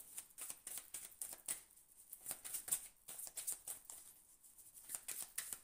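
Oracle cards being shuffled and handled: a soft, irregular run of quick card clicks and slaps.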